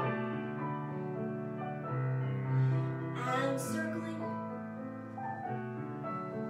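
Piano music for a ballet class, playing calm held notes.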